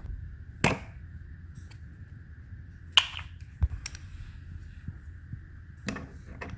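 Parts of an electric pressure washer being handled and fitted together while a hose connection is hooked up: a few separate sharp clicks and knocks, spaced out, over a faint steady high hum.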